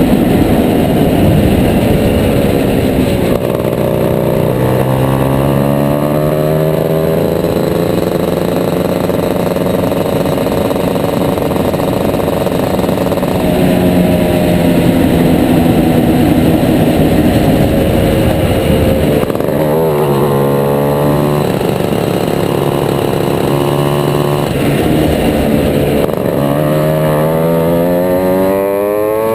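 Shifter kart's two-stroke engine driven hard around a track. Its pitch climbs through each run, then falls sharply several times as the kart brakes and shifts down, and climbs again.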